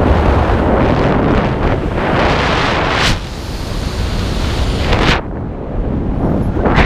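Wind buffeting a camera microphone during a parachute descent under an open canopy: a heavy, low rush that drops off suddenly twice, about three and about five seconds in, before swelling again.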